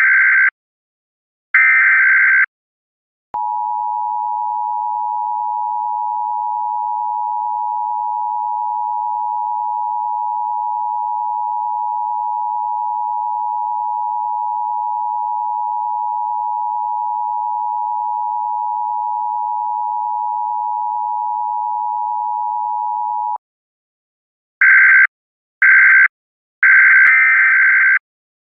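Electronic buzzer sounding in short harsh blasts, then a steady, unwavering electronic tone of two close pitches held for about twenty seconds and cut off abruptly, followed by more short buzzer blasts near the end.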